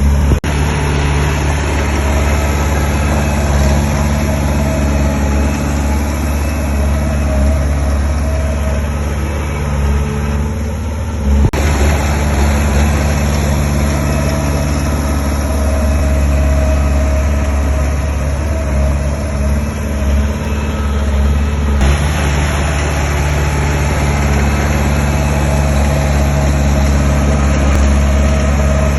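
Diesel engines of heavy earthmoving machinery (a small bulldozer and dump trucks) running steadily with a deep low drone. The sound changes abruptly twice, about a third and two-thirds of the way through.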